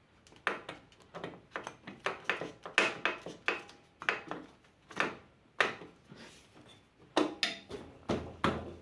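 Irregular clatter of knocks and taps from hands handling and pressing the aluminium clutch cover on a Yamaha YBR 125 engine, about twenty sharp knocks with short pauses between.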